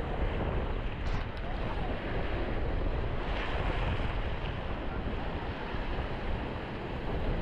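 Sea surf washing in steadily, with wind buffeting the microphone.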